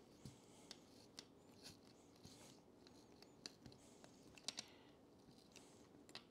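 Faint, irregular small clicks and soft scraping of a snap-off utility knife cutting through the rubber air hose of a Ryobi cordless inflator.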